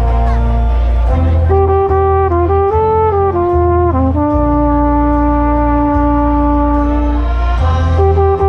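Marching band brass playing a melody, with a trumpet right at the microphone: a run of short notes, one long held note from about four to seven seconds in, then moving notes again, over a deep low undertone.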